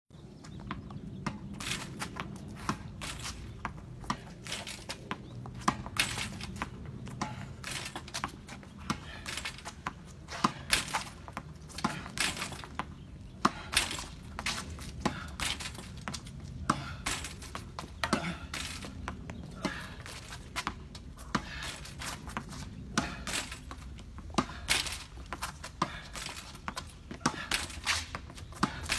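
Tennis ball being struck with a racket and bouncing on a concrete driveway: a steady string of sharp knocks, about one or two a second, during solo practice against a rebound net.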